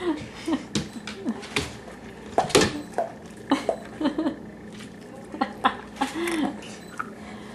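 Scattered clicks and taps from two dogs moving on a tile floor, with a few short babbling sounds from a toddler, one about six seconds in.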